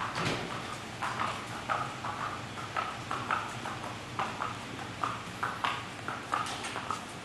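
Hooves of a Peruvian horse striking a concrete aisle as it is led at a walk: a steady run of clip-clop hoofbeats, about three a second.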